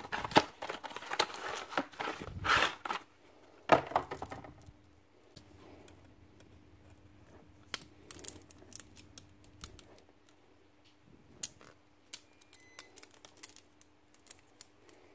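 A cardboard box torn open and a new saw chain pulled from its packaging with loud crinkling and tearing, then light scattered clicks and rattles of the chain's links as it is worked around a chainsaw bar by hand.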